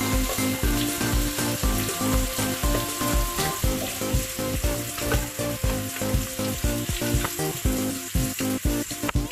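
Food frying in a hot pan with a continuous sizzle, with background music with a steady beat alongside.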